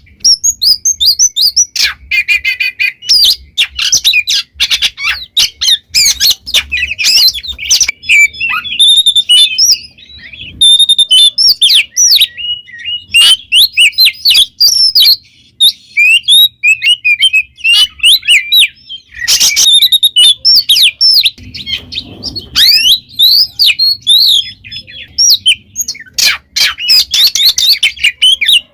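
Oriental magpie-robin (kacer) singing loudly and without pause: a fast, varied run of rising and falling whistles, chirps and harsh rasping notes, broken only by a few short gaps.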